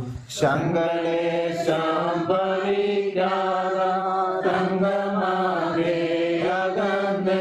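A Malayalam Christian hymn sung slowly, each syllable held as a long, steady note before moving to the next pitch. There is a short break just after the start.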